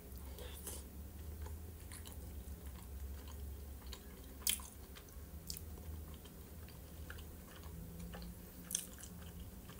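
A person chewing a mouthful of varenik (dumpling) with mayonnaise: wet chewing with scattered small mouth clicks and smacks, two sharper ones about halfway and near the end.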